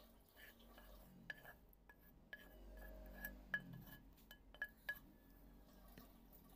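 A wooden spatula knocking and scraping against a frying pan and a ceramic bowl while chopped raw sambal is scraped in and stirred: several light clinks, each with a short ring.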